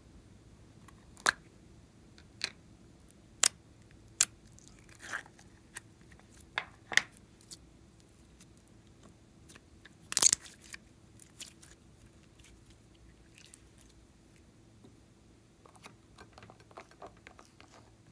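A plastic slime tub being handled and opened: sharp separate plastic clicks and crackles, then a louder crackling squish about ten seconds in as the slime is pressed out into a glass bowl, and a run of faint crackles near the end.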